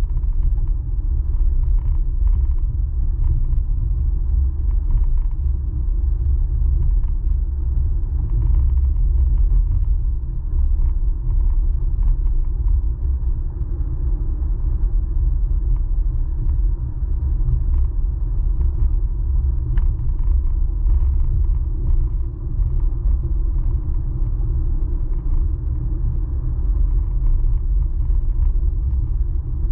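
Steady low rumble of a car driving, heard from inside the cabin: tyre and engine noise.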